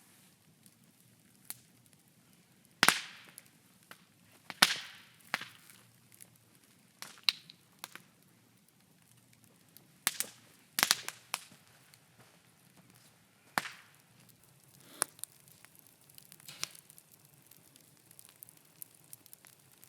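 Bonfire of scrap timber crackling, with sharp pops at irregular intervals, every second or two, some trailing off in a brief hiss.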